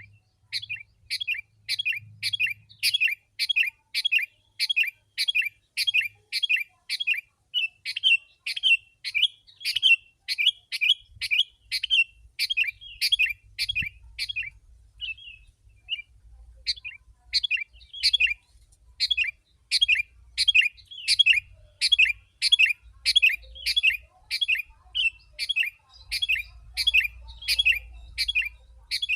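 Sooty-headed bulbul (kutilang) calling in a fast, dense run of short, bright chirps, about two a second, with a brief pause about halfway through.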